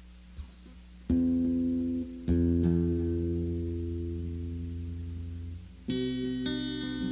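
Amplified plucked-string music played live: two long, low sustained notes that slowly fade, then from about six seconds in a brighter run of ringing, repeated notes.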